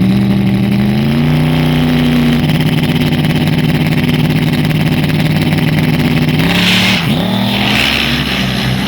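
Drag-racing street car engine at full throttle during a pass, held at a high steady pitch, with a brief drop and recovery about a second in as it shifts gear. About seven seconds in the engine note falls away as the driver lifts off, with a hiss over it.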